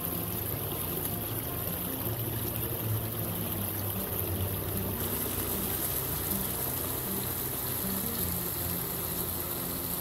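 Shallow creek running over a series of low rock ledges: a steady rush and trickle of water.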